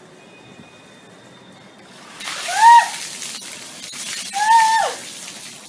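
A bucket of water tipped over a person and splashing onto a tiled floor for about three seconds, starting about two seconds in. Over the splashing a woman gives two short high shrieks, the first the loudest, the second longer and falling in pitch at its end.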